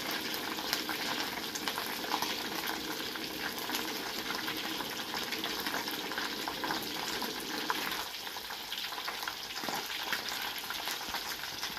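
Battered ikan lumek (Bombay duck) deep-frying in hot oil in a wok: a steady sizzle with fine crackling. The pieces are late in the frying, nearly crisp and dry.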